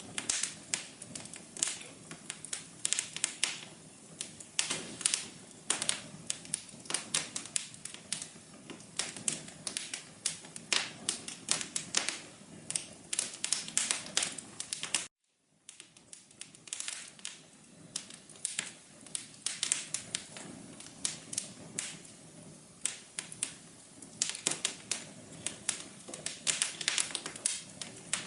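Fireplace fire crackling: irregular sharp pops and snaps over a soft hiss. The sound cuts out briefly about halfway through, then resumes.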